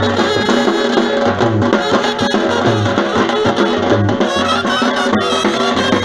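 Loud brass band music, with trumpets over drums and a deep beat about every second and a quarter, accompanying a dancing horse.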